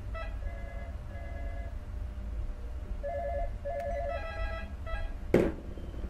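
Electronic beeping and warbling tones in short phrases of held notes and fast two-note trills, over a steady low rumble; a single sharp knock about five and a half seconds in.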